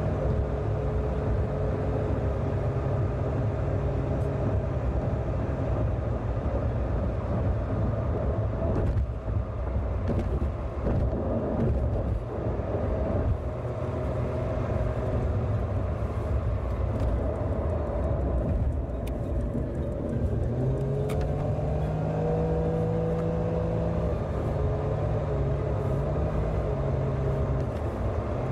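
Car on the move: steady engine and road noise, with the engine note rising about twenty seconds in and dropping back near the end.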